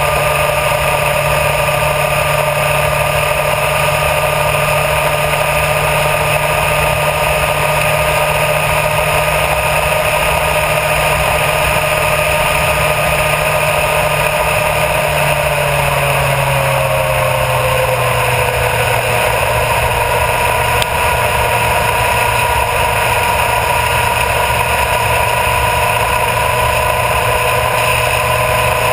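Honda CBR1000RR Fireblade's inline-four engine at steady cruising revs, with wind and road noise. A little past halfway the engine note glides slightly lower and holds there.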